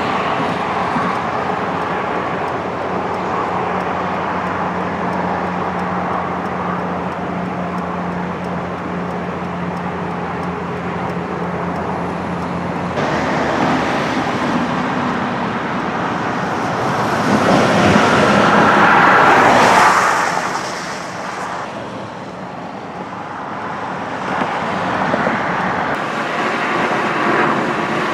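Road traffic noise: a steady hum of cars going by. The sound shifts abruptly about halfway through, and a vehicle passes close about three-quarters of the way through, the noise swelling and then fading.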